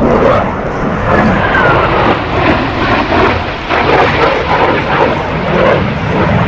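Dassault Rafale C fighter jet flying a display pass, its twin Snecma M88 turbofans giving a loud, rough jet roar with a ragged crackle that swells and eases as it banks away.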